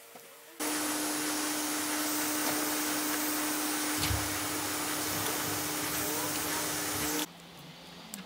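Heat gun blowing steadily with a fan-motor whine, shrinking heat-shrink sleeving over soldered wire joints. It switches on about half a second in and cuts off about seven seconds in.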